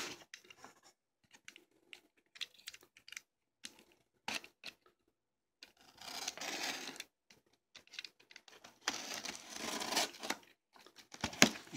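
Cardboard shipping box being turned over and cut open: scattered light taps and scrapes, then longer scraping, rustling stretches about six seconds in and again from about nine seconds.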